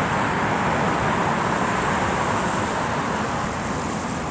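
Strong wind blowing, a steady rushing noise with low irregular rumble from gusts on the microphone, easing slightly near the end.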